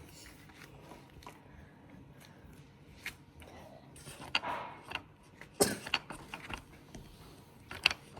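Scattered small clicks and taps of a felt-tip marker being handled and dabbed onto blu tack, with a few sharper clicks, the loudest near the end.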